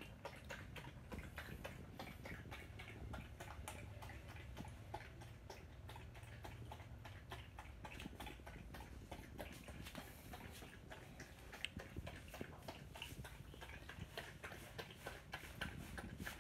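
Dachshund lapping milk from a bowl: a fast, steady run of small wet clicking laps.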